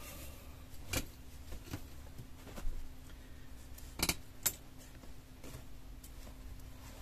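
Fabric being handled and lifted out of a wicker basket: soft rustling with a few light clicks and knocks, the loudest two close together about four seconds in.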